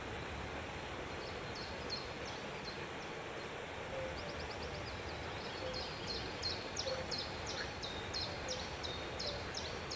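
Birds chirping: a run of short, high chirps, each falling in pitch, sparse at first and then about two a second in the second half, over a steady background noise.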